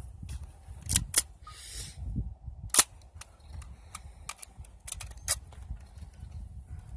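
Sharp metallic clicks and clacks of an AK-pattern M92 pistol being handled between shots, with louder clacks about a second in and near three seconds and a brief rattle in between.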